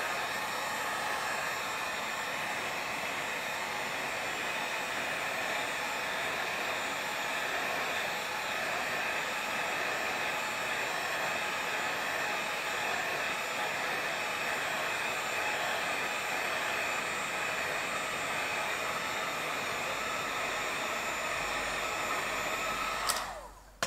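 Electric heat gun blowing hot air steadily at full heat, a constant airy whoosh with a faint steady whine. It is switched off with a click about a second before the end.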